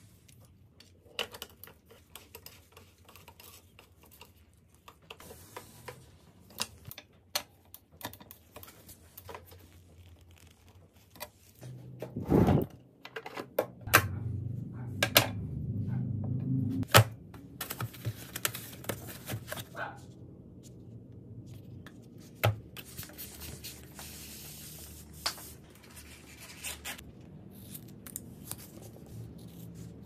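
Hand-work noises from a bicycle build: scattered clicks and taps, rustling, and a few knocks, with a louder knock about twelve seconds in followed by several seconds of low rumbling handling noise.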